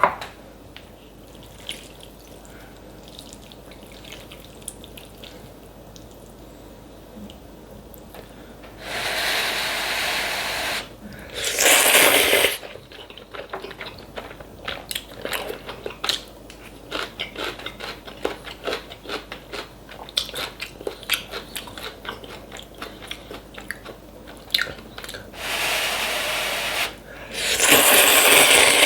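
Kalguksu noodles slurped up in two long, loud slurps, about nine seconds in and again near the end. Between them come chewing and small wet smacks and clicks.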